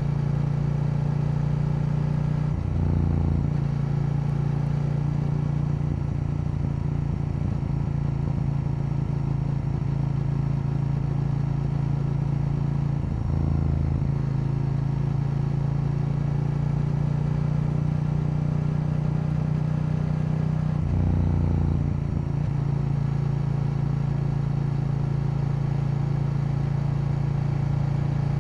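KTM 890 Duke's parallel-twin engine running steadily under way. The engine note changes briefly three times.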